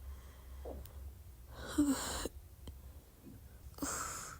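A person's throat making short croaks, the gurgling air sounds typical of R-CPD (retrograde cricopharyngeal dysfunction, the inability to burp). Two breathy exhales come with them, one about two seconds in and one near the end.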